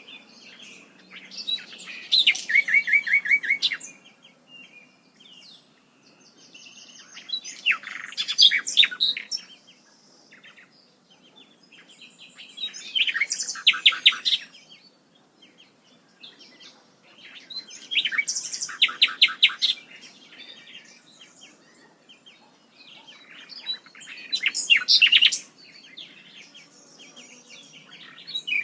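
A songbird singing loud bursts of song, each a couple of seconds of rapid repeated high notes, five times about every five to six seconds.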